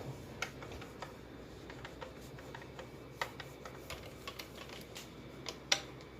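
Scattered light clicks and taps, irregular, with two sharper knocks, about three seconds in and near the end, as the parts of a sewing machine are handled during cleaning.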